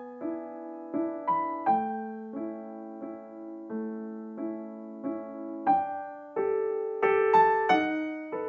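Piano music: a slow, gentle melody of single notes and soft chords, each struck and left to ring and fade.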